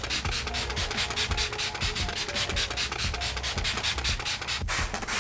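Make Up For Ever Mist and Fix setting spray pump bottle sprayed over and over in quick succession: a fast, even run of short spritzes.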